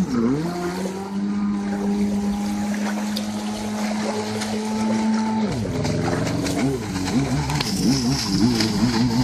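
Engine of a 1995 Mastercraft Wetjet Duo personal watercraft running at speed on the water, holding a steady pitch. About five and a half seconds in the pitch drops and then wavers up and down with changes of throttle.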